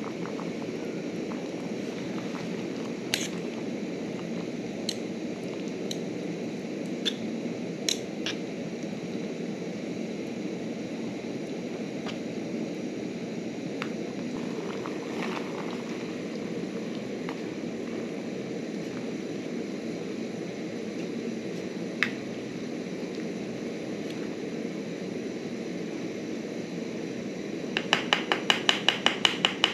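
Portable butane camping stove burning steadily under a pot, a low, even rush of flame, with a few light clicks and taps. In the last two seconds a fast run of sharp clicks comes in, about five a second.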